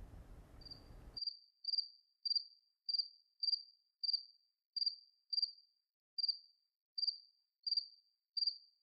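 A cricket chirping: short, high chirps repeating at a little under one and a half a second, starting about half a second in.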